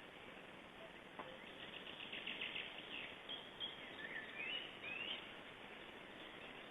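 Bird calls over a steady background hiss: a quick rattling series of notes about a second and a half in, then several short rising whistles around four to five seconds.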